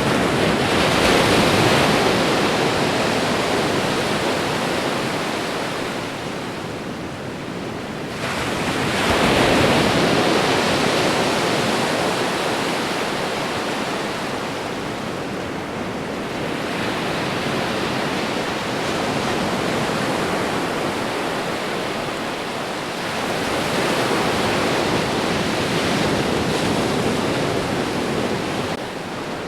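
Ocean waves washing onto the shore: a steady rush of surf that swells as each wave breaks, about four times, strongest near the start and about nine seconds in, then drains away.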